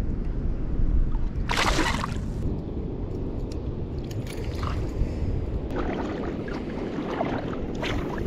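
Shallow water sloshing and splashing around a wading angler and a small fish being released, with one louder splash about one and a half seconds in. Wind rumbles on the microphone underneath.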